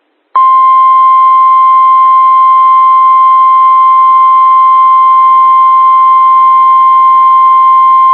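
Emergency alert warning tone: a single loud, steady tone near 1 kHz, the 1050 Hz alert tone of NOAA Weather Radio, over a faint hiss of radio static. It starts about half a second in and signals that a flash flood warning message follows.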